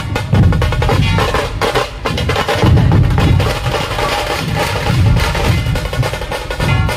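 A dhol-tasha ensemble playing: heavy beats of large barrel dhols repeat under fast, rolling stick strokes on the tashas.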